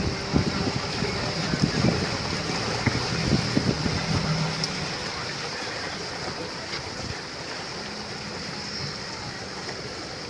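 Water rushing and lapping along the hull of a slowly moving tour boat, over the boat's steady running noise.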